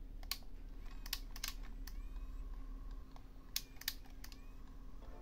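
Light clicks and taps, about eight scattered over a few seconds, from fingers pressing the soft-touch front buttons of a Sony WM-EX674 cassette Walkman and handling its metal case.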